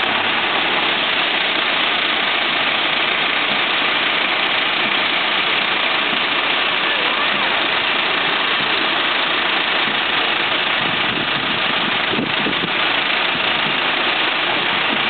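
Massey Ferguson tractor's diesel engine running at low speed as it tows a float trailer past, under a steady noisy hiss.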